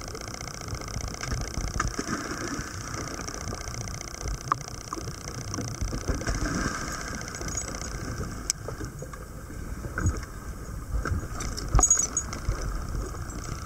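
Small dive boat's engine running steadily under wind and choppy water, with water splashing as divers stride off the side into the sea and several sharp knocks against the boat, the loudest near the end.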